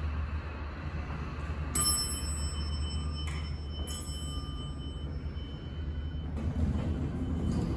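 Elevator hall lantern chime dinging as the car arrives: a bright ding about two seconds in and a second, fainter one about two seconds later, the tones ringing on for several seconds over a steady low hum. A low rumble rises near the end.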